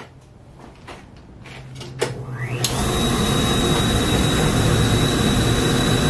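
1992 Clean Burn CB2000 waste oil furnace burner firing up on used motor oil: a faint hum and a few light clicks, then about two seconds in a sharp click and a quick rising whine, settling into a steady loud rush with a high steady whine. The burner runs at 3.5 PSI oil pressure and 22 PSI air pressure.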